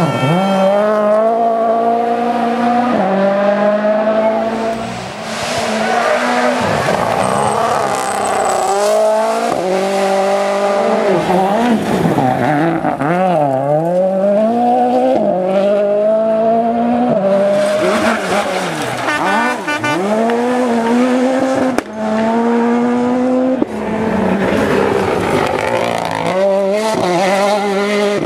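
Rally car engines revving hard at full throttle. The pitch climbs through each gear and drops sharply at every upshift, again and again.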